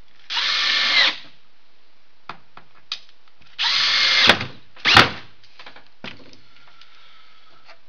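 Cordless drill driving screws into pine boards: a run of about a second, then a second run a few seconds later followed by a short final burst, with light clicks and knocks between.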